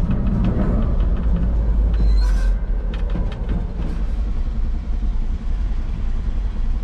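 Grain truck engine running with a steady low rumble and light rattles, with a brief hiss about two seconds in.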